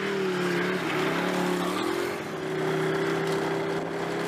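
Snowmobile engine running with a steady drone, its pitch shifting slightly about two seconds in.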